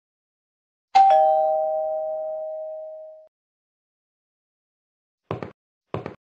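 Two-tone ding-dong doorbell chime: a higher note then a lower one, fading out over about two seconds. Near the end, two short footsteps about half a second apart.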